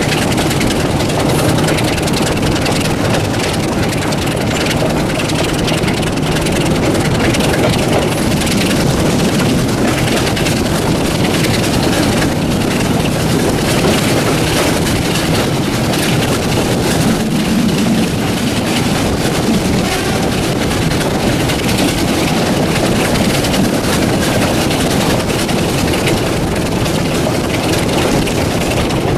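Class 26 diesel locomotive's Sulzer 6LDA28 six-cylinder engine working steadily as it hauls the train. It is heard from an open carriage window, mixed with wind rush and wheels on the rail.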